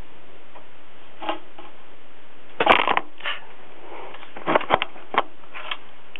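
Rustling and crackling of cage bedding being handled and shifted around a kitten: a few short scattered bursts, the loudest about two and a half seconds in and a quick cluster nearer the end, over a steady recording hiss.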